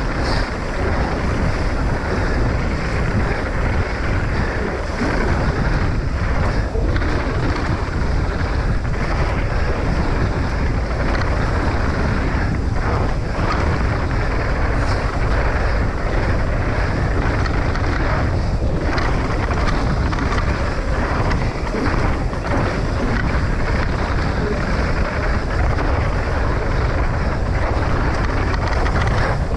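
Heavy wind buffeting on a helmet-mounted GoPro as a mountain bike descends a dry dirt trail at speed, with the tyres rolling over dirt and stones and short knocks and rattles from the bike over bumps. The rear tyre is running with no air pressure, on its insert alone.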